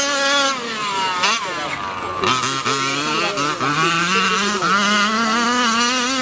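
OBR Hybrid 34 reed-case two-stroke engine of a large-scale petrol RC truck running hard at high revs with a warbling note. A little after a second in it throttles off and back on, then accelerates again in several rising surges.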